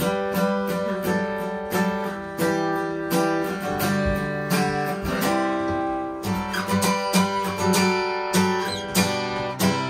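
Acoustic guitar strummed in a steady rhythm, full chords ringing between the strokes.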